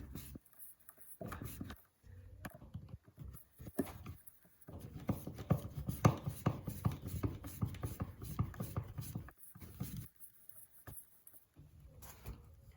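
Small clicks and scraping of a hand screwdriver and the outlet being handled as a wall outlet is screwed into its electrical box. The clicks come densest in the middle stretch, with no motor sound.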